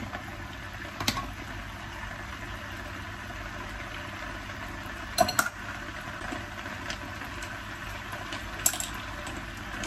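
Clams simmering in olive oil and white wine in a stone-coated pan over high heat, a steady sizzle, broken three times by clicks of silicone-tipped tongs and clam shells against the pan as opened clams are lifted out; the loudest click comes about five seconds in.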